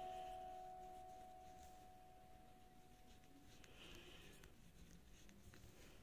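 Near silence: a chime-like note from the background music fades out in the first second, then faint scratching of a ballpoint pen writing on notebook paper.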